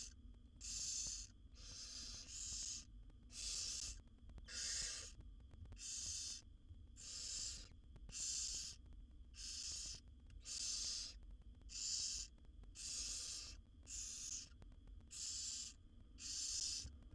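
Barn owl nestlings giving hissing begging calls, each about half a second long and repeated roughly once a second, the calls of several chicks sometimes overlapping.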